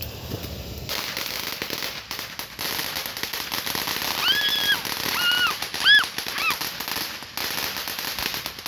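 A crackling firework popping: a fast, dense string of small pops with hiss that starts about a second in and runs on, briefly breaking near the end. Midway, several short high cries that rise and fall sound over the popping.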